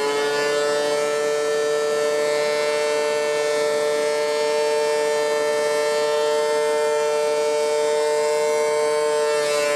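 DeWalt DW735X thickness planer running with a steady, high-pitched whine, which wavers briefly near the end.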